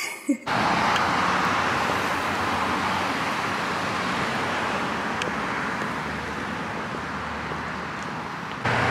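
Steady road-traffic noise: a continuous rush of passing vehicles with a low hum beneath, stepping louder near the end.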